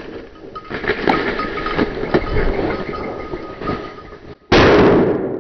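Rough rustling with scattered knocks, then about four and a half seconds in a sudden loud shotgun blast that dies away over about a second and cuts off sharply.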